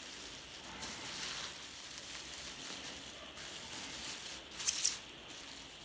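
Packaging rustling and crinkling as a box is opened by hand, with a short, sharper burst of rustling about four and a half seconds in, the loudest sound.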